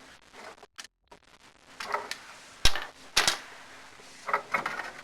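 A few sharp clicks and knocks, the loudest two a little past halfway, about half a second apart.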